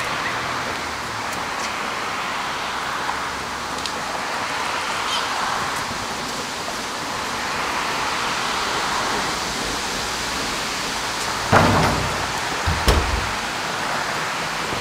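Steady hiss, with three sharp thumps near the end, the first the loudest.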